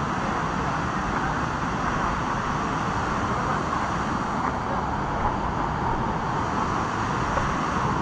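Steady rushing noise of a tall waterfall pouring into its plunge pool.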